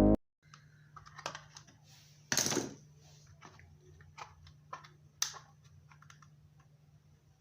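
Scattered light clicks and knocks of small plastic parts being handled, with a louder brief scrape about two and a half seconds in and a sharp click about five seconds in, over a faint steady low hum.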